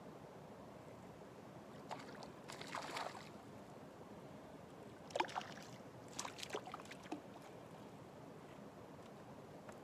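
Water splashing as a hooked smallmouth bass thrashes at the surface while it is reeled in: a short burst of splashing about two to three seconds in, then a quick run of sharper splashes from about five to seven seconds in.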